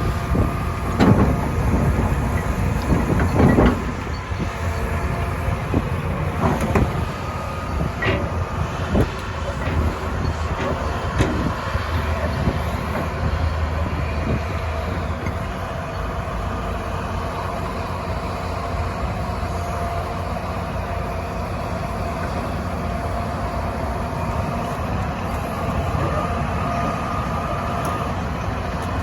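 Excavator running steadily while digging, with several knocks and clanks in the first eight seconds or so, then an even machine drone.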